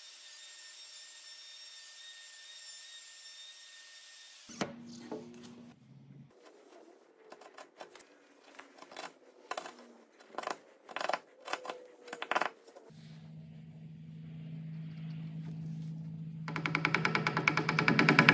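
Festool plunge router running steadily, then cutting off about four and a half seconds in. Next comes a string of short, sharp cracks as a chisel pares out a square peg hole. Near the end a low steady hum and a fast, even beat of music come in.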